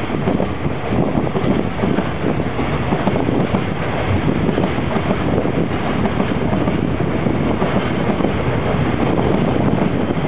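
A train running past with a steady rushing noise, mixed with heavy wind buffeting on the microphone.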